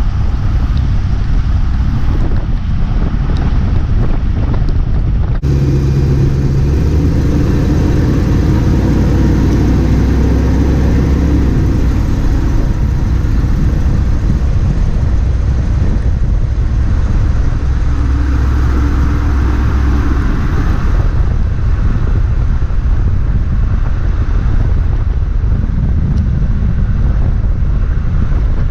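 A motor vehicle running, with wind noise on the microphone; a low engine drone comes up about five seconds in and eases back around twenty seconds.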